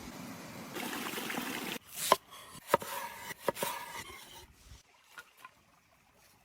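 Steady rushing of stream water, cut off suddenly. Then a few sharp wooden knocks and clinks of food preparation, the loudest three within about a second and a half, fading to faint ticks.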